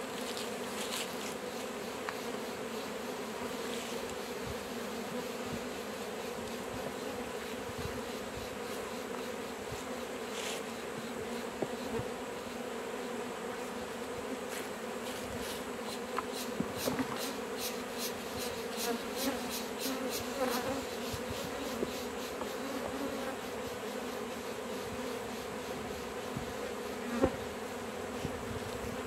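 Honey bee colony buzzing steadily around an open hive, a dense unbroken hum. A few light clicks come in the second half, with a sharper tap near the end.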